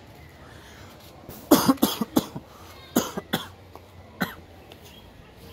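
A person coughing close to the microphone in a fit: a quick run of about five coughs, then two more, then a single last cough.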